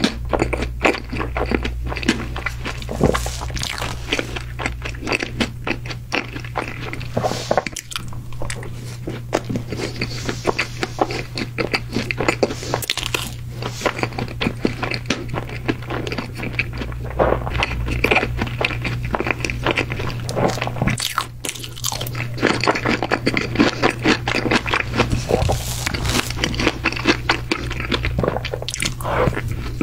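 Mouth sounds of eating chocolate sponge cake: steady wet chewing with many small clicks and crunches, and a fresh bite near the end.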